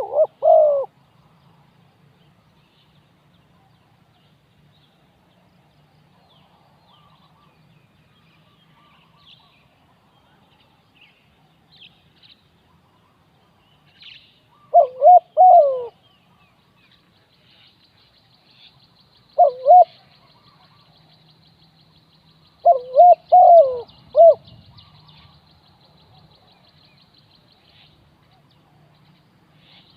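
Spotted dove cooing in short phrases of rolling, curved coo notes: one phrase at the start, then three more spaced several seconds apart, the last with three or four notes. A faint high trill runs in the background for much of the second half.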